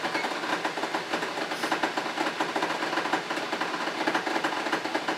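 Water-bath canner at a rolling boil with jars of salsa inside, giving a steady hiss of steam and boiling water with a fast rattling chatter through it.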